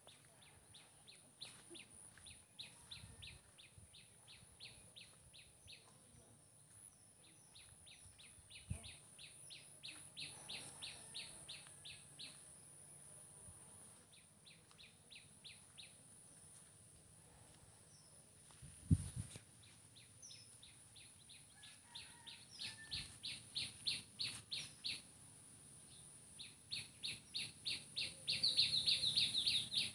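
A small bird calling in bouts of rapid, evenly repeated high chirps, about five a second, each bout lasting several seconds, over a steady faint high hiss. One low thump about two-thirds of the way through.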